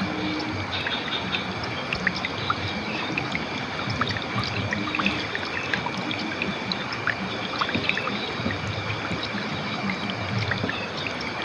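River water flowing steadily over rocks, with many small splashes and trickles. A faint steady high tone runs underneath.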